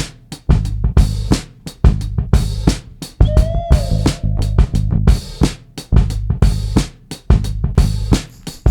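Background music with a steady drum-kit beat, kick and snare hits over a bass line.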